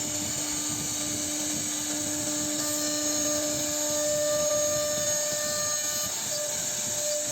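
CNC router carving wood: a steady spindle whine over the noise of the bit cutting, with a lower tone that drops away about five seconds in.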